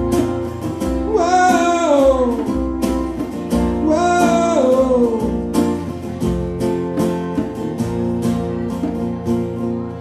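Live country song on a strummed acoustic guitar, with a man's voice singing two long, sliding, falling phrases in the first half. After that the guitar strums on alone.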